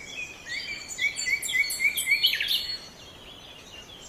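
Songbirds singing: one bird repeats a short rising chirp about four times a second, with higher calls over it, then a quick falling note. The song eases off after about two and a half seconds.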